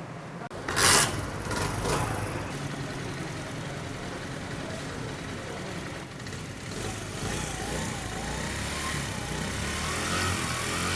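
Motorcycle engine starting with a sudden burst about a second in, then running steadily at idle. The engine has a newly fitted timing chain and a corrected tensioner spring, and it runs without the earlier timing-chain noise.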